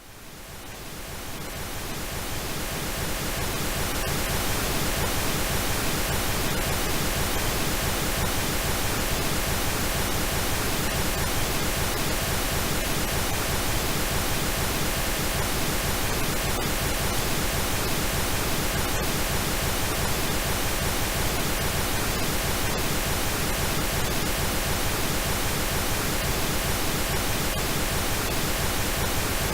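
Synthetic pink noise: a steady, even hiss across the whole range, fading in from silence over the first few seconds and then holding level.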